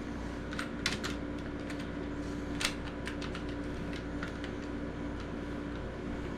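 Tyco Power Torque model-locomotive motor running after repair, with a steady hum and scattered sharp clicks.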